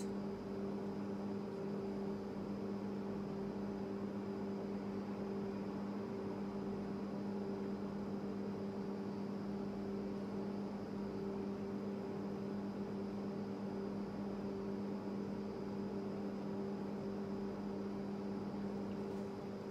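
Steady low electrical hum with a faint hiss, holding one unchanging pitch.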